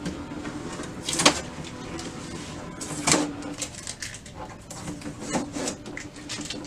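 Blue shipping tape being peeled off an HP OfficeJet Pro 7740 inkjet printer in short rasping rips, about a second and three seconds in, with smaller rustles later. Under it is a steady low hum from the printer as it boots up.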